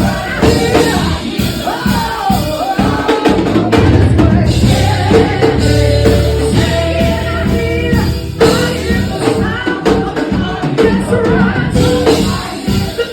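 Live gospel praise music: singing voices over a drum kit and band, with heavy low bass notes about four seconds in.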